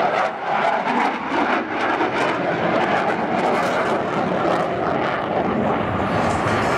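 F/A-18 fighter jet's twin jet engines during a tight turn: loud, steady jet noise with a rough, crackling edge.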